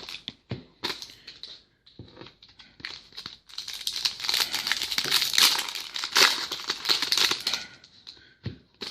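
Foil wrapper of a trading-card pack crinkling and tearing as it is handled and opened. The crackle comes in uneven bunches of small clicks and is thickest in the middle.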